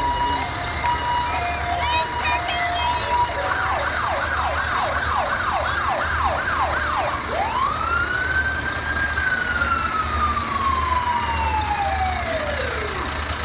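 Emergency vehicle siren sounding in a parade: a fast yelp of about two cycles a second, then a single wail that rises quickly and slowly falls away over about five seconds. Vehicle engine rumble runs underneath.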